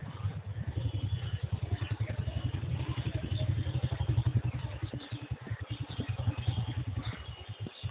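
Low, rapidly fluttering rumble of wind and handling buffeting a handheld camera's microphone while walking. It dips briefly near the end.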